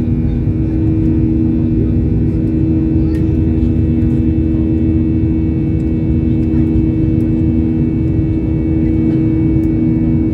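Airliner cabin noise during the climb after takeoff: the turbofan engines' steady drone with a few held tones over a deep rumble, heard from a window seat beside the engine.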